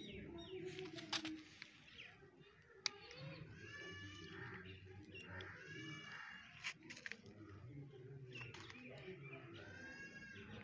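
Meow-like animal calls, each rising and then falling in pitch, repeated every second or two over a low murmur, with a few sharp clicks.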